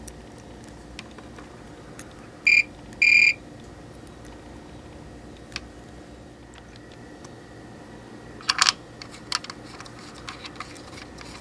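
Two short electronic beeps, the second a little longer, over a steady electrical hum. Near the end come a quick burst of sharp clicks and a few fainter clicks, like switches or equipment being handled.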